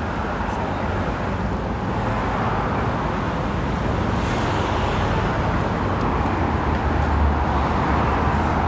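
Steady city street traffic noise: cars running along a busy avenue, with a deeper rumble swelling briefly about seven seconds in.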